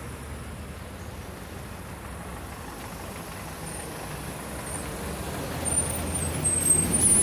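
City bus approaching and pulling in to a stop: the low diesel engine rumble grows louder over the last couple of seconds as it draws alongside, with a high brake squeal near the end as it slows.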